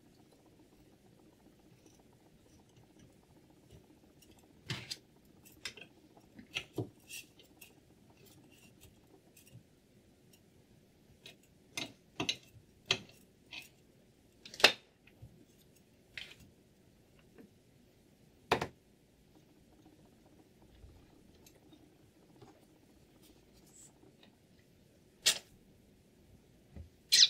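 Scattered short clicks, taps and clinks of small hard objects being handled, about fifteen at irregular intervals with the loudest near the middle and end, over a faint steady hum.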